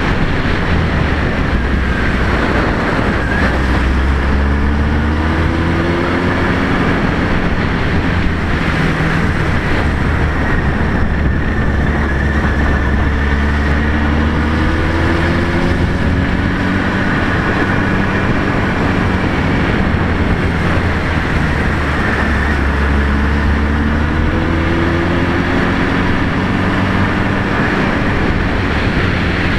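Honda Hornet 900 motorcycle's inline-four engine running under way, rising in pitch three times as it accelerates, over a steady low rumble and wind rushing across the microphone.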